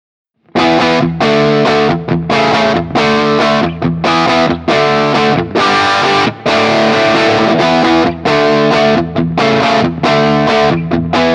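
Electric guitar through a BSM Starbreaker transistor tube-amp-simulator pedal into a Fender Bassman amp, playing distorted chords. It starts abruptly about half a second in and continues as choppy chords with brief gaps between them.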